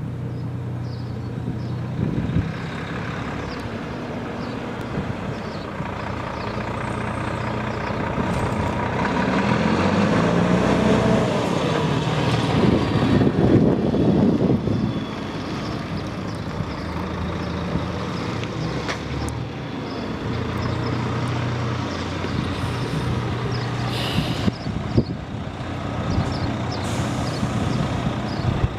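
Volvo FH tractor unit's diesel engine running as the truck manoeuvres, rising in pitch and getting louder as it pulls past close by about halfway through, then settling back to a steady idle. A brief hiss comes near the end.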